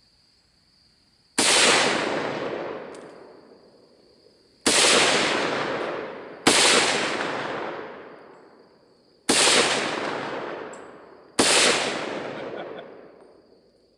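SKS semi-automatic rifle in 7.62×39 mm fired five times at uneven intervals. Each shot is a sharp crack followed by an echo that fades over about two seconds.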